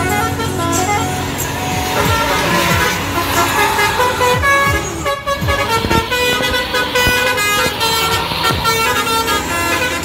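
Telolet basuri musical bus horn playing a fast tune of short stepped notes while a tour bus drives past, its engine running underneath.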